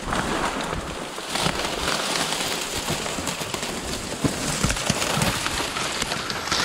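Dry reed stalks crackling and snapping as someone pushes through a dense stand of them, the stems scraping and rustling against the microphone.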